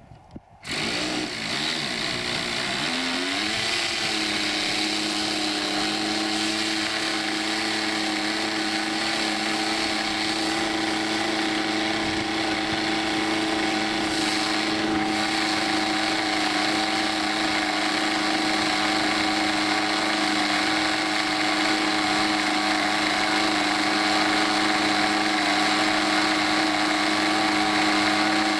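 The Hangar 9 P-51 Mustang model's engine, spun with a handheld electric starter, catches about a second in. Its pitch rises and wavers for a few seconds, then it settles into a steady idle.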